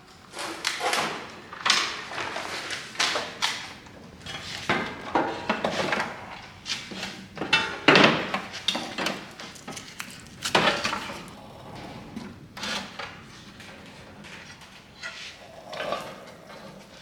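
Steel welding cart and its parts being handled: irregular metal clanks, knocks and scrapes, the loudest about 8 and 10.5 seconds in.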